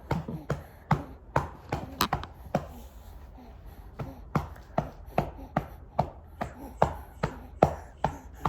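Rhythmic hand patting, about two to three light, sharp pats a second, growing more even in the second half.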